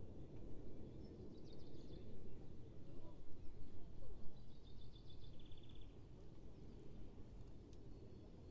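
Outdoor ambience: a steady low rumbling background noise, over which a songbird sings two short, high, trilling phrases, about one second and four seconds in.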